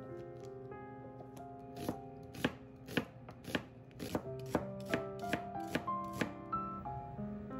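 Kitchen knife slicing an onion on a wooden cutting board: about ten crisp strokes, roughly two a second, with fainter knife taps before them. Soft background music throughout.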